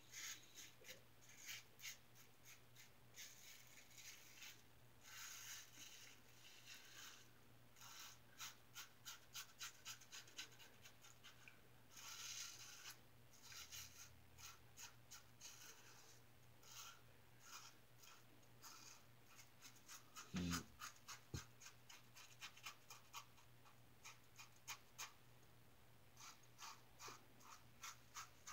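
3D-printed injector safety razor with a Schick injector blade scraping through lathered stubble: faint, quick scratchy strokes in runs. A brief low thump about two-thirds through.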